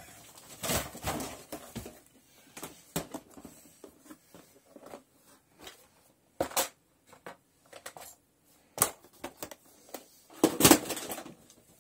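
Scattered knocks, clicks and clattering of objects being handled and moved while someone searches for a wire cutter. Single sharp knocks come at irregular intervals, with a denser burst of clatter near the end.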